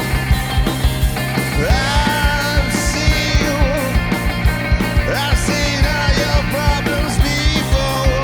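Rock band playing loudly: a driving drum beat and steady bass, with a lead line that slides and bends in pitch coming in about two seconds in.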